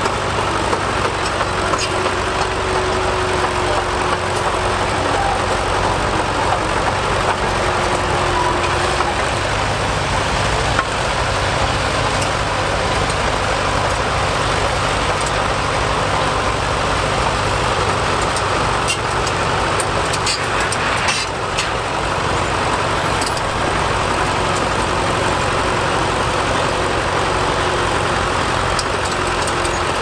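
Fordson County crawler bulldozer's engine running steadily as the machine tracks across the field, with a few clicks about two-thirds of the way through.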